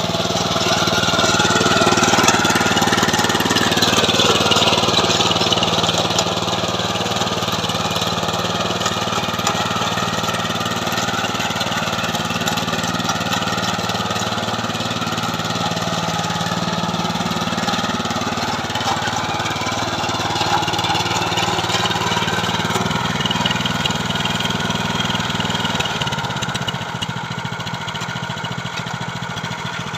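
Small engine of a KB-365 mini tiller running steadily, its pitch wavering a little, slightly louder in the first few seconds.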